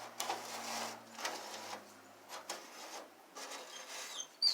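A series of short, irregular scraping and rubbing strokes on sheet metal as a patch panel is handled and marked. A dog's high whine starts right at the end.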